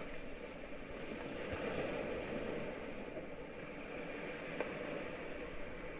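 Sea waves washing and breaking against shoreline rocks, a steady rushing that swells about two seconds in, with a single short click about four and a half seconds in.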